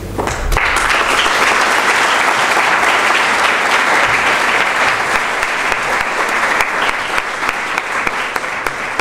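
Audience applauding: many hands clapping together, starting about half a second in and easing off slightly toward the end.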